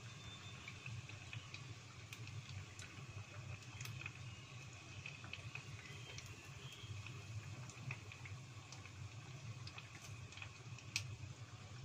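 Battered tofu skewers deep-frying in a pot of hot oil: a quiet steady sizzle with scattered crackling pops, and a sharper click near the end. A low steady hum sits underneath.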